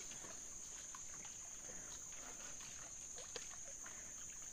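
Steady high-pitched drone of forest insects, with faint scattered small water drips and knocks from a wooden canoe on the stream.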